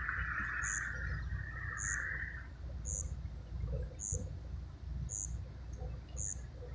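Outdoor ambience with a short, high chirp repeating evenly about once a second, over a steady low rumble. A buzzing chorus stops about two and a half seconds in.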